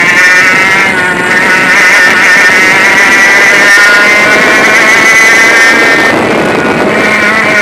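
100cc two-stroke kart engine at high revs under the driver, its note wavering as the kart runs down the straight and easing about six seconds in as it turns into a bend.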